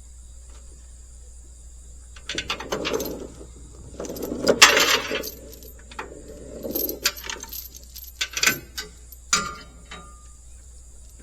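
Metal tie-down chain and hardware clinking and rattling in irregular bunches as the load on a trailer is chained down, with a short metallic ring near the end.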